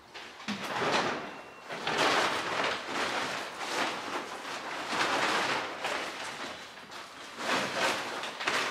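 Fabric motorcycle cover rustling and swishing as it is pulled off the bike, in a series of swishes about every second.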